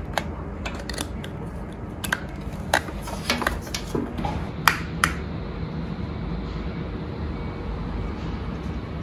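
Sharp plastic clicks and knocks of an OBD diagnostic cable and its connectors being handled and plugged in, over a steady low hum. The clicks stop about five seconds in, leaving only the hum.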